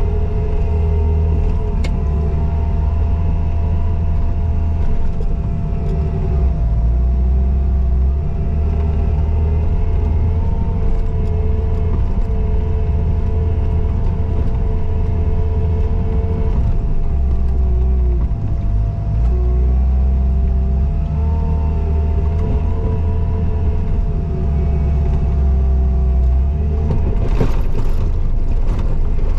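Skid steer engine running hard with a heavy low rumble, its pitch rising and dipping repeatedly as the machine pushes snow, with a steady high tone over it. A few sharp clanks near the end.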